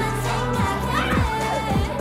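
K-pop song playing: a sung vocal over a steady beat of deep kick drums.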